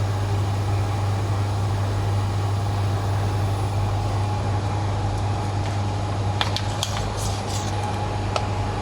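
Steady machinery hum with a faint constant whine above it. A few light clicks and taps come about six and a half to seven and a half seconds in, and one more just before the end.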